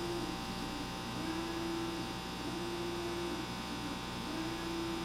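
Steady electrical mains hum and buzz, with a faint higher tone that comes and goes about four times.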